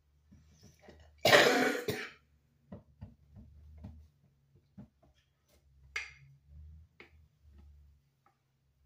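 A person clears her throat with one harsh cough about a second in. Around it come faint soft knocks and rubbing from hands kneading thick dough on a floured countertop.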